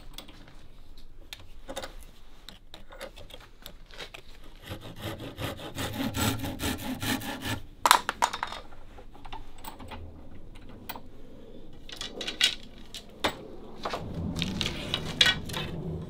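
Hand saw cutting a thin bamboo rod clamped in a bench vise, a stretch of scraping back-and-forth strokes, with a couple of sharp clacks about eight seconds in. Scattered knocks and more scraping follow.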